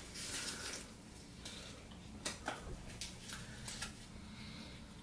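A man drinking grass jelly drink from a can: a few faint clicks and small sips in a quiet room, mostly in the middle of the stretch.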